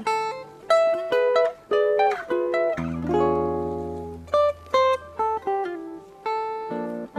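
Jazz guitar playing a phrase of quick plucked notes and close-voiced cluster chords, with a low chord left ringing for about three seconds near the middle.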